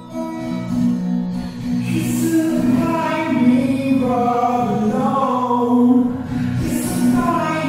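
Background music with a singing voice holding and gliding between long melodic notes.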